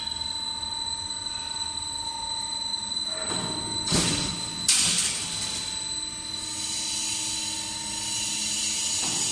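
C strut channel roll forming machine running, its forming rollers and chain drive turning with a steady mechanical whine. Two sharp metallic clanks come about four and five seconds in.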